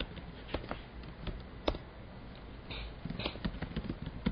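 Computer keyboard keystrokes: a few scattered single clicks, then quicker runs of typing from about three seconds in, over a faint low hum.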